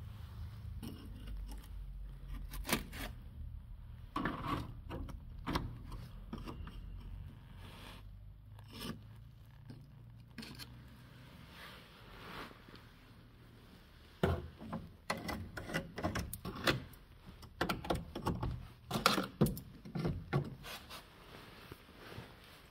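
A screwdriver scraping and prodding at the rusted underbody metal of a 1987 Opel Kadett Caravan, probing the rotten sill and floor. It comes as a run of short scrapes and knocks, scattered at first and coming thick and fast in the second half.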